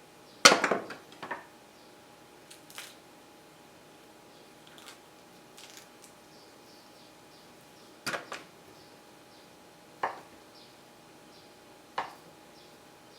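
A handful of sharp knocks and clatters of household things being handled, the loudest and busiest about half a second in, then single knocks about two seconds apart near the end.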